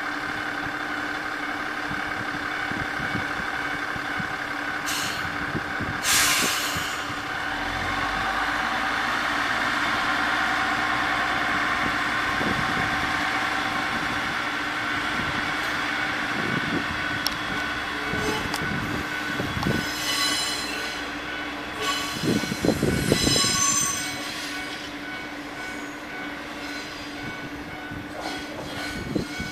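Tenryu Hamanako Railroad diesel railcar running with its engine idling, a short hiss of air about six seconds in, then the engine working harder as the car pulls away. Later its wheels squeal with a few clunks for several seconds as it rolls across the yard tracks.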